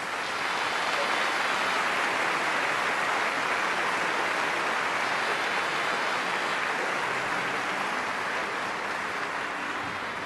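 Theatre audience applauding steadily, a dense unbroken clapping that eases slightly toward the end.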